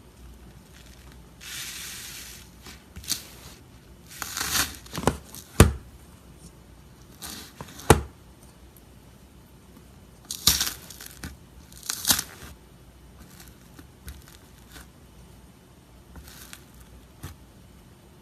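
Iceberg slime being pressed and pulled apart by hand, its hardened top crust crackling and tearing in separate bursts, with a few sharp, loud pops.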